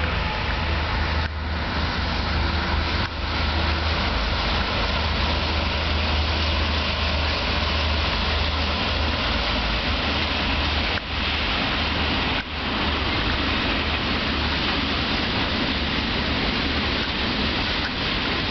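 An ET21 DC electric locomotive passing close at speed with a long freight train, then the loaded freight wagons rolling by: a loud, steady rumble of wheels on rails.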